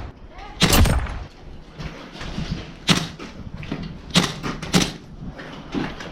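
Airsoft guns firing single shots, sharp cracks at irregular intervals: a longer, louder one near the start, then three more and a weaker one near the end.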